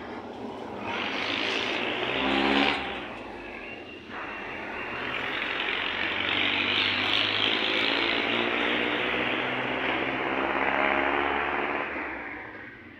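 Motor vehicles passing on the street: a short one that rises and cuts off about three seconds in, then a longer one that builds, holds and fades away over the rest.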